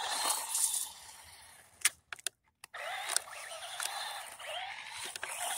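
Electric motor of a 1/16-scale TEMI RC tow truck whining as the truck drives, its pitch rising and falling with the throttle. A sharp click about two seconds in, followed by a short near-silent gap.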